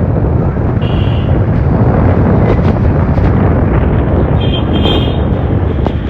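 Wind rushing over the microphone with steady engine and road noise from a moving motorbike. Two short high-pitched tones sound about a second in and again near five seconds.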